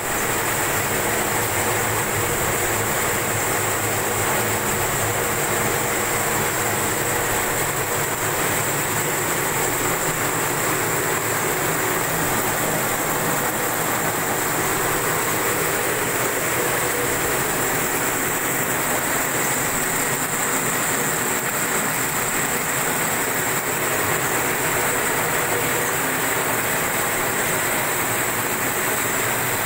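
Carton folder-gluer (gluing and pasting machine) running at speed, its belts and rollers carrying cartons through, with a steady, even mechanical noise.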